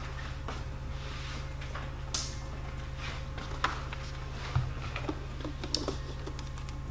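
Scattered light clicks and knocks of an object being picked up and handled, with a dull thump about four and a half seconds in, over a steady low hum.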